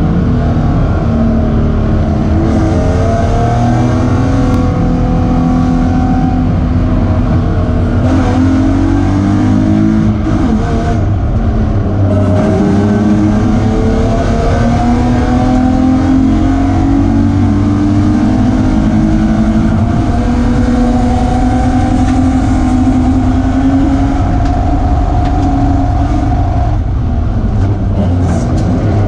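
BMW E36 Spec3 race car's straight-six engine heard from inside the cabin under hard acceleration, its pitch climbing through the revs and dropping back at each of several upshifts.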